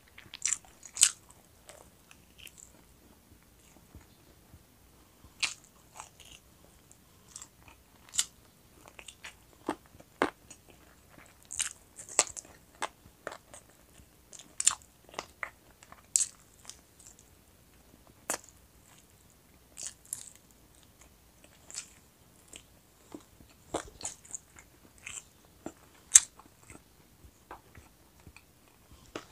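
Close-miked eating of roast chicken wings: irregular bites, crunching and chewing, made of many short, sharp clicks and crackles, the loudest about a second in and near the end.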